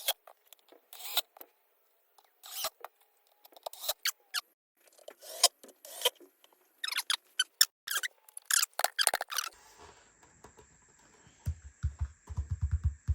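Irregular sharp clicks, scrapes and short squeaks from hands working on loudspeaker parts, followed a few seconds before the end by a faint steady high whine and a run of low thuds.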